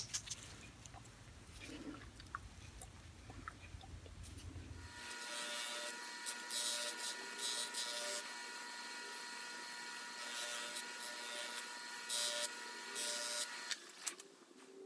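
Faint low hum with a few light ticks, then from about five seconds in a small electric motor running with a steady whine, with a few brief rasps as metal is pressed against it. These fit a polishing wheel working the steel screwdriver.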